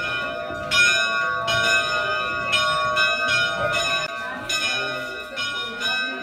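Rope-pulled bell ringing, struck about once a second, irregularly, with each stroke ringing on into the next. It is the call for the group to gather in prayer.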